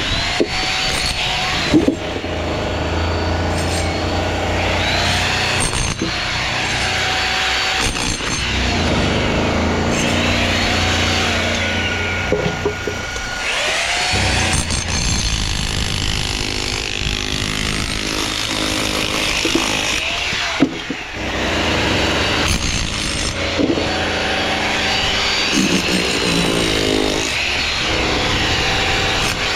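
Power tool running, its motor pitch rising, holding and falling again several times as it spins up and slows down.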